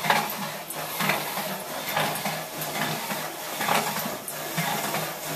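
Simple Pump's linear-bearing link drive and DC motor running solar-direct: a steady low motor hum with a mechanical clack about once a second as the pump strokes.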